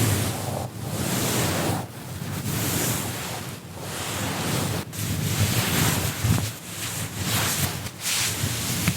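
Cloth whooshes: a piece of fabric swung and shaken through the air in a run of swishes, each lasting a second or two, with short breaks between them.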